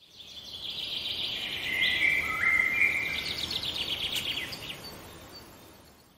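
Logo-animation sound effect: a high, shimmering, fluttering sound that swells up over the first second, carries a few short stepped tones, then fades away.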